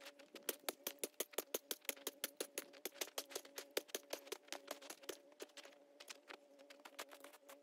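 Rapid crunching strikes, about six a second, of a small hand tool hacking at packed snow, thinning out after about five seconds. A faint steady hum lies underneath.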